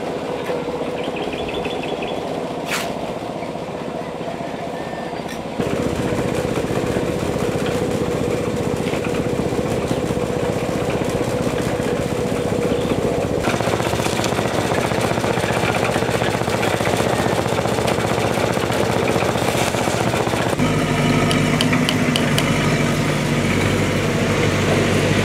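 Construction-site noise dominated by a steady engine running, with the sound shifting abruptly a few times. In the last few seconds a deeper, even engine hum comes to the fore.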